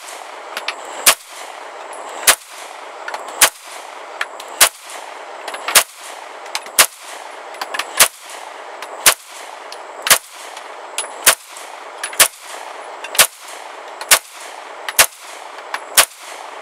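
A CZ 75 SP-01 Phantom 9mm pistol firing at a slow, steady pace, about one shot a second, fifteen shots in all as a 17-round magazine is emptied.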